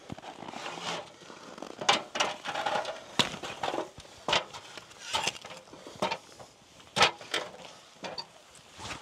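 Irregular crunches and knocks of boots on packed snow and on the rungs of an aluminium stepladder as someone climbs it. Near the end the sounds continue as a soft snow tool starts clearing snow from a camper van's roof.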